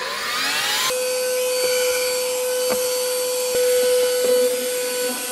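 Cordless handheld car vacuum cleaner starting up with a rising whine over the first second, then running steadily as its crevice nozzle works along the centre console tray. A few light knocks of the nozzle against the plastic sound through it.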